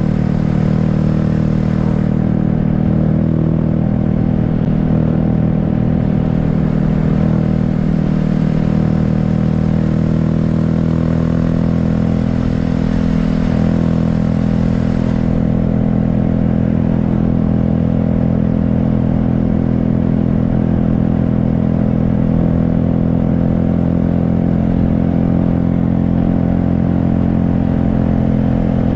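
A 2020 Honda Grom's 125cc single-cylinder engine running at a steady engine speed while the motorcycle is ridden.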